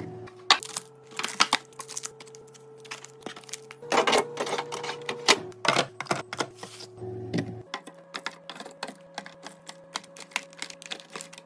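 Plastic containers, lids and jars clicking and tapping as they are handled and set down while a fridge is being restocked, with the busiest run of clicks about four seconds in. Soft background music with held notes plays underneath.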